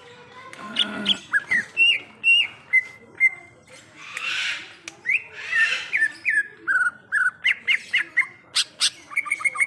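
Green leafbird (cucak ijo) singing: a string of short whistled notes that slide up and down in pitch, broken by a couple of harsh rasping notes, with a quick run of chips near the end.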